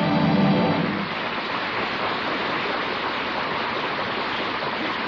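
A stretch of music ends about a second in, leaving steady, fairly loud hiss and crackle: the surface noise of an old 1949 radio broadcast recording.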